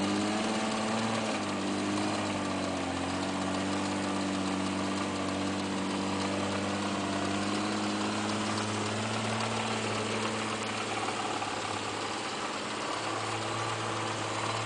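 Off-road truck's engine running at low, steady revs while crawling over rocks, the note rising a little in the first second and dipping slightly about twelve seconds in.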